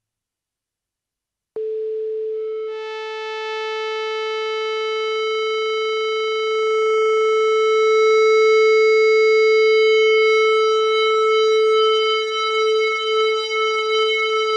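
Radikal Technologies Delta CEP A synthesizer holding one sustained note. It starts suddenly after a moment of silence as a near-pure tone, then brighter overtones come in and it slowly swells. Near the end the note begins to waver in level.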